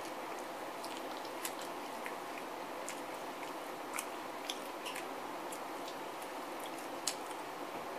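A person chewing and biting into chicken wings: scattered wet mouth clicks and smacks over a steady background hiss, the loudest click about seven seconds in.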